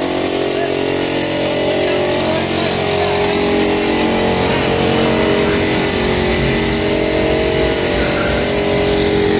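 A motor or engine running steadily: a constant hum of several steady tones over a low rumble.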